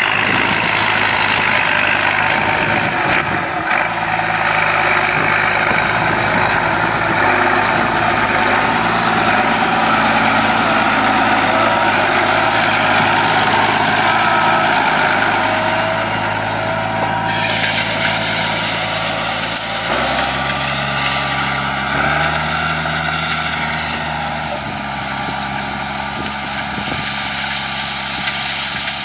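New Holland 7840 tractor's diesel engine running steadily under load while pulling an 18-disc harrow through dry soil. The engine note shifts abruptly twice about two-thirds of the way in.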